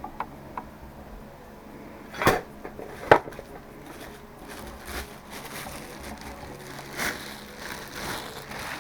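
A few light knocks and clicks over a quiet room, the loudest two about two and three seconds in.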